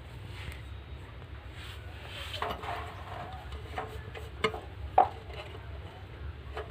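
Irregular metal clinks and knocks from handling a mixer grinder jug and its blade assembly during a blade replacement, the sharpest knock about five seconds in.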